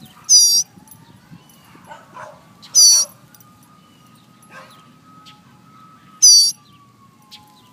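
A fledgling bird giving three short, high begging calls a few seconds apart, the calls of a young bird asking to be fed.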